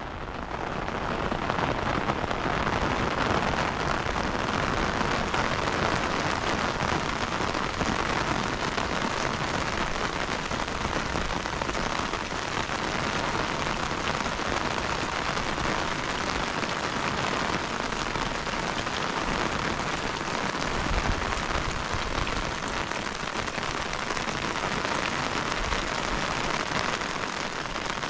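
Steady heavy rain pattering on a surface, swelling up over the first second and then holding even, with a short low rumble about twenty seconds in.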